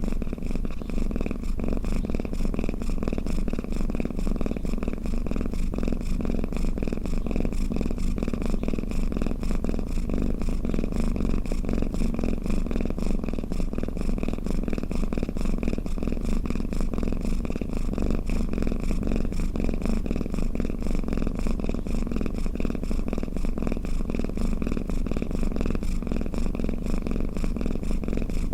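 Domestic cat purring steadily and without a break.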